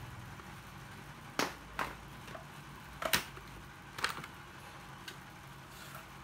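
Four sharp knocks and clicks, with a few weaker ticks, from hard objects being handled, over a faint steady low hum.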